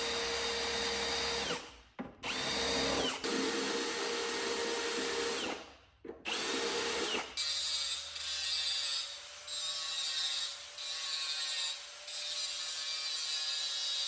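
Handheld power tool used in car body repair, running in spurts: it cuts out briefly twice and starts again, then settles into a higher, hissier sound that rises and falls about once a second.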